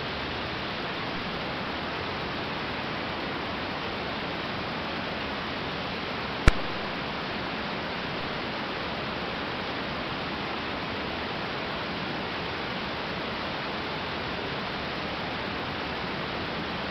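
Steady, even hiss of a 1946 Aeronca 7AC Champ's in-flight cockpit noise as carried by the headset intercom audio, with one sharp click about six and a half seconds in.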